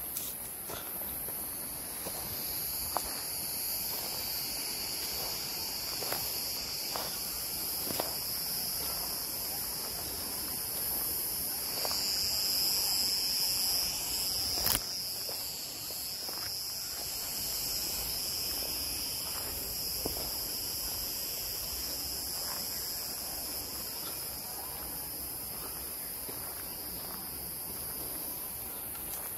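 A steady, high-pitched insect chorus shrilling without pause, swelling a little about halfway through. Occasional footsteps crunch beneath it, one sharper than the rest about halfway through.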